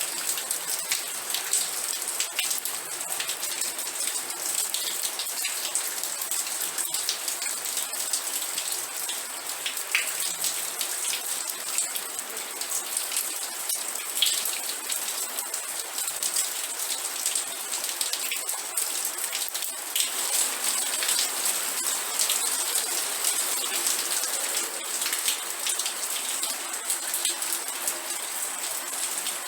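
Steady rain falling, with a constant hiss and many close drops striking a surface as sharp ticks.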